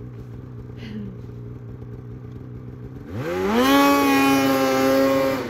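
Stuck snowmobile's engine idling, then revved hard about three seconds in: the pitch climbs quickly and holds high at full throttle for a couple of seconds before dropping off. The rider is pinning the throttle to break the sled free of the hill.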